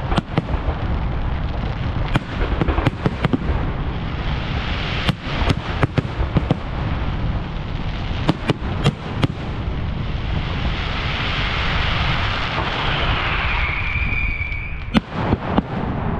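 Fireworks display: a rapid, uneven run of sharp bangs from bursting shells over a low rumble, easing into a few seconds of steady hiss with a short whistle, then a last cluster of bangs near the end.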